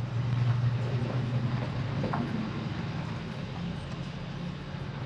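Drill press motor running with a steady low hum while the cutter works a hole in the cast body of a tractor diesel pump, recutting a stripped thread; a short squeal about two seconds in.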